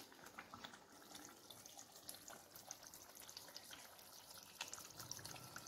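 Faint popping and bubbling of thick tomato pickle cooking in its separated oil in a steel pan: scattered small pops and ticks.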